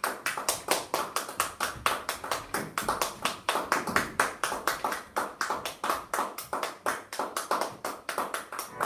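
Audience applauding, with distinct, quick, even handclaps at about six a second.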